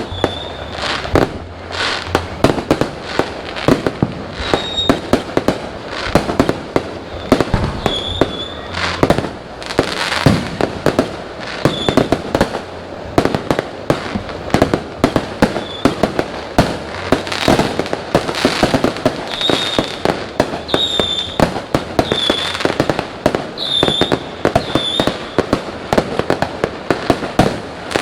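Many fireworks going off at once in a dense, irregular barrage of bangs and crackles. Short high whistles cut through several times, mostly in the second half.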